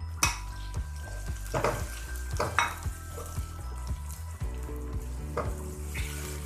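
Diced tomatoes and sliced onions sizzling in hot oil in a kadhai, stirred with a spatula that scrapes and knocks against the pan several times.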